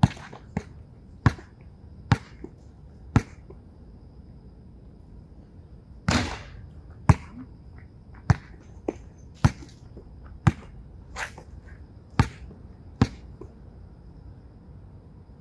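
Basketball bouncing on a court in single, sharp bounces at uneven intervals, about every half second to a second. About six seconds in comes a longer hit with a ringing tail.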